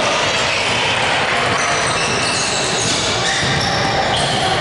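Basketball game sounds in a large gym: a ball bouncing on the hardwood court and sneakers squeaking, over a steady background of spectator chatter.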